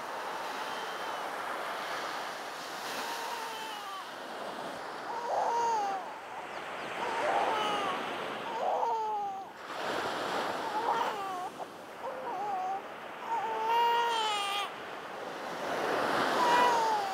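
Ocean surf washing steadily, with a woman crying over it in repeated high, wavering wails.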